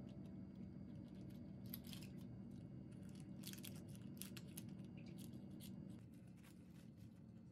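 Spatula scraping and pressing thick chocolate paste into a square metal ring mold: faint scrapes and clicks, bunched about two seconds in and again around four seconds. Near the end, plastic wrap crinkles faintly as it is laid over the mold.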